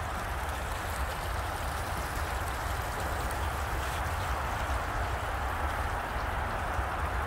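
Steady splashing of water from a garden pond's small rock waterfall, with a low rumble underneath.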